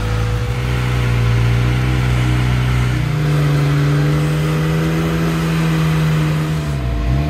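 Jeep Wrangler JL engine running at steady revs. Its pitch steps up about three seconds in, holds, then drops sharply and climbs again near the end.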